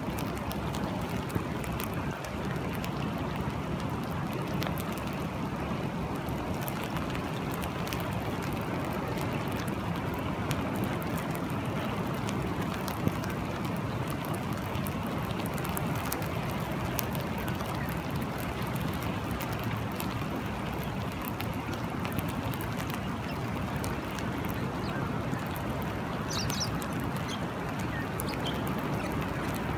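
Steady rain falling on open water, over the even rush of a flowing river, with fine scattered drop ticks.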